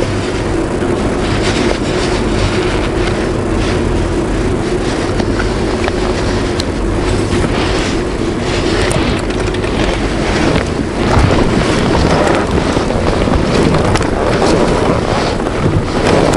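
BMW R1200GS Adventure's boxer-twin engine running steadily while riding, with wind rushing over a helmet-mounted microphone.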